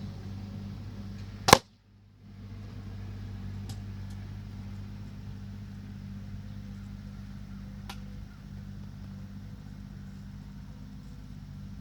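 A single sharp shot from a Gamo Recon G2 Whisper .177 break-barrel spring-piston air rifle about a second and a half in, followed by a few faint clicks. A steady low hum runs underneath.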